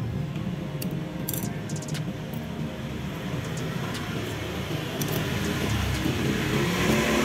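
A few light metallic clicks as a thin pick works inside a scooter's starter one-way clutch, over a steady low background rumble that swells near the end.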